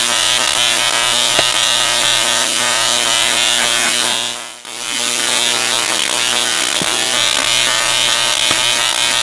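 Tesla coil discharging: a loud, steady buzzing crackle of high-voltage arcs striking the end of a pole held near its toroid, with a low hum under it. The arcs stop for a moment about four and a half seconds in, then start again.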